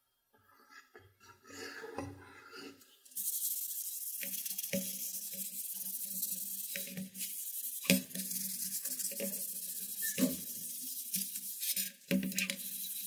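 Baby oil squeezed from a plastic bottle onto a wooden cleaver handle, then a cloth rubbing the oil into the wood in repeated strokes with light knocks, over a steady hiss from about three seconds in.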